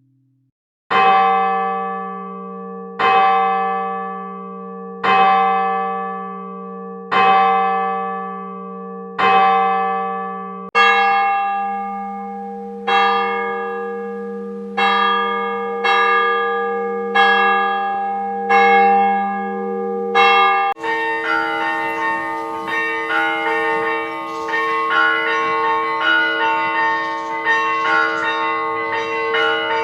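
A large church bell tolling, struck about every two seconds with each stroke ringing on and dying away. About ten seconds in, a different church bell takes over, tolling slightly faster. About twenty-one seconds in, several church bells start ringing together in a continuous peal.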